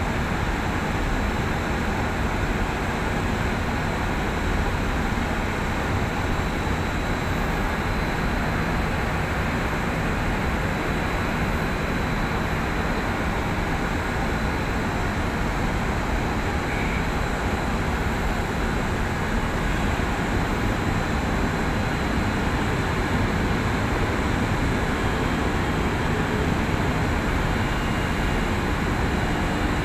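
Steady, unbroken machinery drone from the crane working a clamshell grab over a bulk sugar hold, with no separate knocks or clanks standing out.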